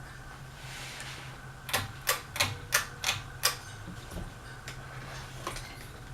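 Harbor Breeze Aristocrat ceiling fan running on medium speed with a steady motor hum. A quick run of about six sharp clicks comes about two seconds in, with a few fainter ticks afterwards.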